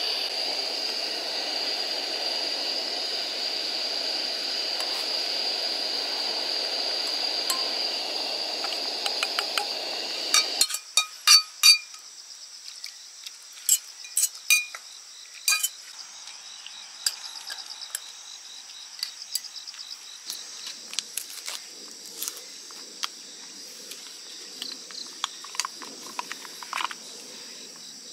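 Steady hiss of a portable gas stove burning under a stainless pot, stopping suddenly about ten seconds in. After it, metal tongs clink and scrape against a stainless steel pot in scattered sharp, ringing knocks.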